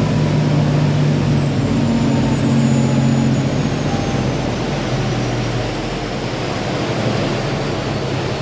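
Twin 5.5-litre mechanical turbo diesel marine engines throttling back as the boat comes off plane. The turbos' high whine falls steadily in pitch as they cut out, and the engines' low drone drops off about halfway through.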